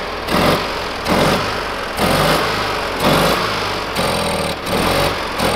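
The Kohler 18-horsepower opposed-twin engine of an Argo 8x8 amphibious vehicle running at idle.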